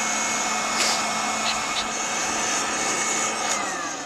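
Small electric blower forcing air through a pipe into a charcoal pit forge, running with a steady whine and rush of air, then switched off near the end and winding down in pitch. A few sharp clicks sound over it.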